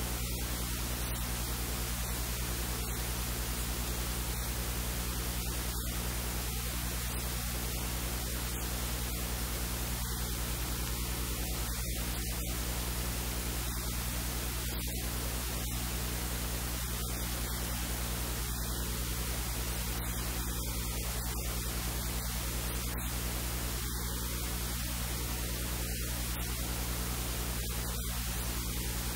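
Steady electrical hum with a stack of evenly spaced overtones under a constant even hiss.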